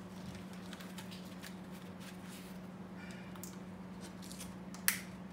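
Wooden cigar boxes and their paper inserts being handled: light rustling and small taps, with one sharp click about five seconds in, over a steady low hum.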